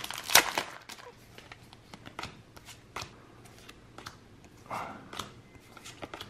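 Pokémon trading cards being flipped off a stack one at a time by hand, each card giving a light slide and snap. A loud crinkle of the foil booster pack comes just after the start.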